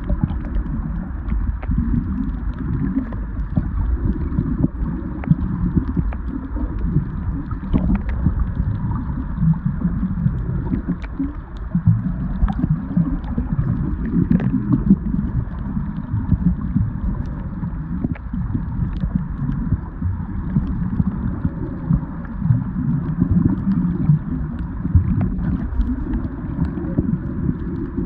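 Muffled underwater rumble and sloshing of water moving around a submerged camera, uneven in strength, with scattered faint clicks.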